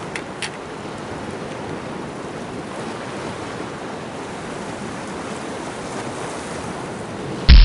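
Steady wash of sea waves with wind on the microphone, and two light clicks near the start. Just before the end a loud, brief burst of noise, then the sound cuts off abruptly.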